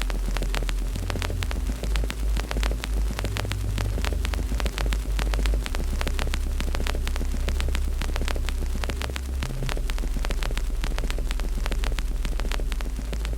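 Wood fire crackling: many small sharp pops and snaps over a low rumble.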